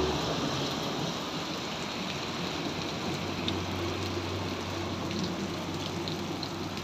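Heavy rain falling steadily on a flooded road and puddles: an even, unbroken hiss with scattered drop taps.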